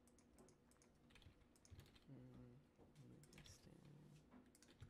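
Faint keystrokes on a computer keyboard, a scatter of quick, irregular clicks.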